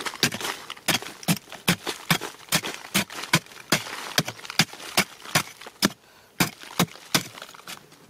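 Machete blade chopping repeatedly into a hard, crumbly termite mound, about three sharp strikes a second with a brief pause near the end, and earth crumbling away.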